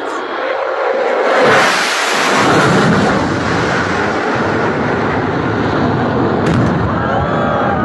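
Fighter jet flying past, its engine noise swelling about a second in and staying loud.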